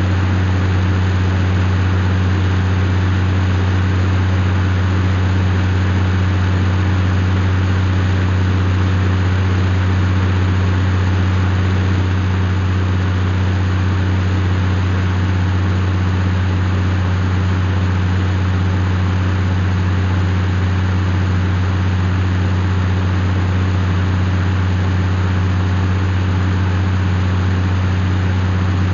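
Case IH CVX 150 tractor engine running at a steady, unchanging speed, a deep constant hum.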